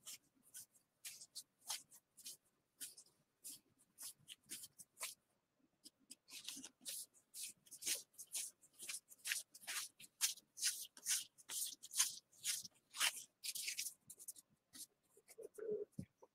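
Gypsy Queen baseball cards being flicked through one at a time in the hands: a rapid run of short papery swishes as each card slides off the stack. After a brief pause about a third of the way in, the flicks come quicker and louder.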